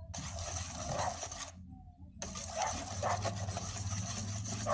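Chocolate cake batter being mixed in a bowl to work out the lumps, a continuous scraping over a steady low hum. The sound cuts out briefly about one and a half seconds in.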